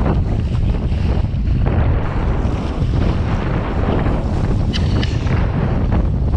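Wind buffeting the microphone heavily over the rush and splash of water along a small sailing dinghy's hull as it sails through chop. A brief high-pitched squeak about five seconds in.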